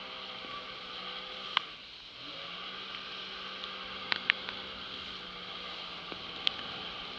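Personal watercraft (jet ski) under way, its engine humming under a steady rush of water and spray from the wake. About two seconds in the engine note drops briefly, then climbs back as the throttle opens again. A few sharp ticks are scattered through.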